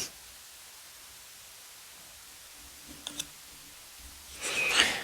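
Thick tarot cards being handled: a sharp tick at the start, a few light clicks about three seconds in, and a short rustle of a card sliding across the deck near the end.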